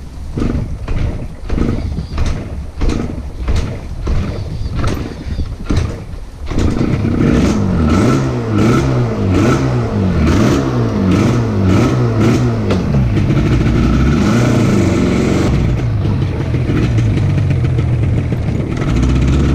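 Yamaha RZ250 parallel-twin two-stroke engine firing in sharp separate pops about every two-thirds of a second, then catching at about six and a half seconds. It revs up and down a few times, then settles into steady running.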